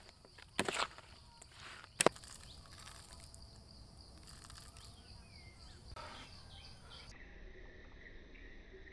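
Quiet outdoor background with a steady high insect drone, broken by a short rustle a little under a second in and a sharp click about two seconds in.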